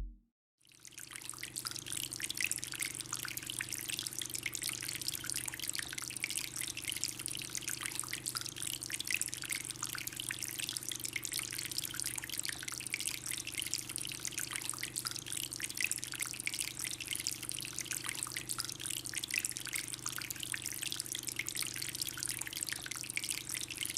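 Water trickling and splashing continuously in a small homemade fountain, a dense patter of droplets over a steady low hum.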